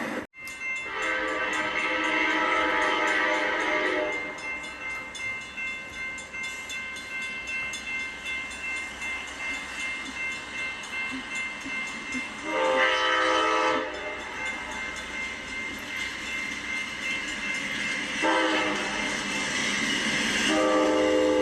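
Amtrak P42DC diesel locomotive sounding its multi-note horn in three blasts: a long one just after the start, a short one around the middle and another long one from near the end. Between the blasts comes an even pulsing of wheels clacking over rail joints as the train passes.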